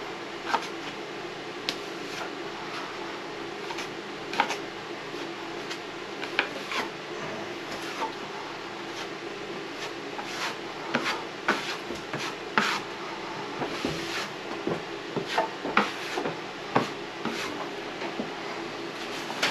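Metal drywall knife scraping joint compound across a plaster ceiling in many short, irregular strokes with small clicks of the blade, over a steady background hum.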